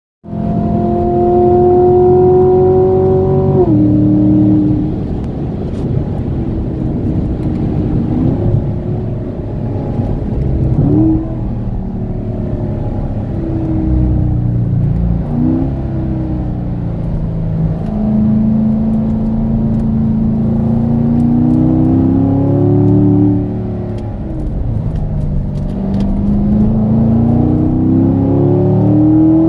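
Chevrolet Corvette C7's 6.2-litre V8 accelerating hard, heard from inside the cabin. Its pitch climbs steadily through each gear and drops sharply at each upshift of the eight-speed automatic, several times over, with road and wind noise underneath.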